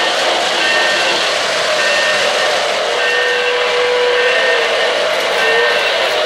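O-gauge model steam locomotive and freight cars running on three-rail track, a steady rumbling rail and wheel noise, with short high tones repeating at an even pace. About three seconds in, a low whistle-like tone holds for roughly a second.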